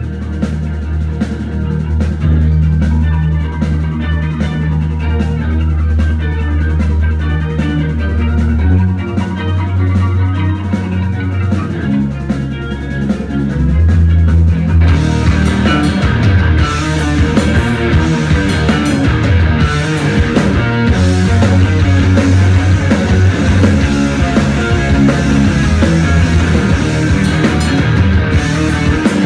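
A rock band playing live, with drum kit, bass and guitar. A steady drum beat runs under held bass notes, and about halfway through the whole band gets louder and fuller.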